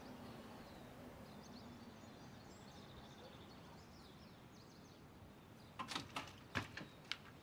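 Quiet background ambience with faint high chirps, then several sharp clicks and knocks near the end.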